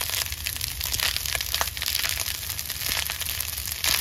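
Spatula stirring and tossing fried rice in a frying pan, an irregular run of scrapes and clicks against the pan over a steady hiss.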